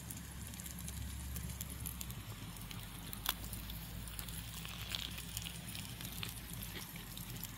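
A Swiss fire log burning under a cast iron skillet of sausages: soft crackling and sizzling, with scattered small pops and one sharper pop about three seconds in.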